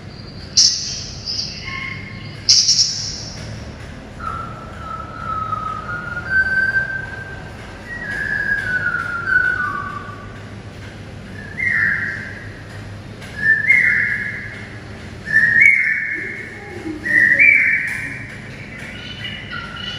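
Recorded song of a Malabar whistling thrush played from an exhibit speaker: a string of clear, gliding whistled phrases, louder and higher in the second half, after a few short high calls in the first seconds.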